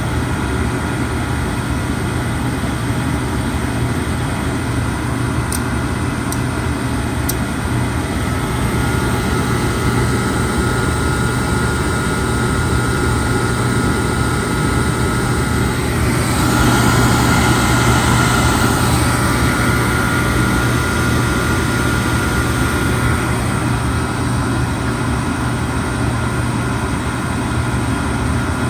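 Oil furnace burner running: a steady low hum with a rushing noise, a few faint clicks about five to seven seconds in, and a louder stretch with a higher steady whine a little past the middle.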